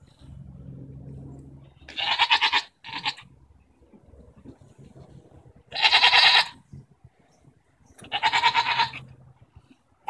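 Goats bleating loudly in turn as they squabble: a call about two seconds in with a short one right after, another near the middle, and one more about eight seconds in. A faint low rumble comes before the first call.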